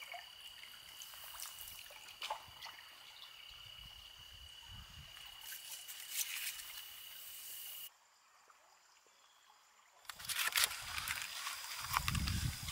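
River ambience from a drift boat: light water sounds under a steady high-pitched tone with scattered ticks. About two-thirds through it drops away suddenly to near quiet. Then comes crackly crinkling of aluminium foil and handling noise as a foil-wrapped lunch is opened and eaten, with a low thump near the end.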